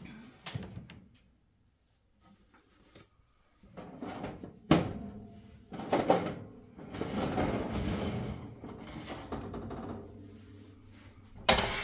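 Metal baking pan and oven rack clanking and scraping as biscuits are taken out of a small countertop oven: a few sharp clanks with a longer stretch of rattling and scraping between them, and a loud clank near the end.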